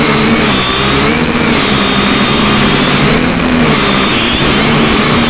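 Syma X5C quadcopter's four small electric motors and propellers whining close up, with the pitch rising and falling as the throttle changes while it lifts off.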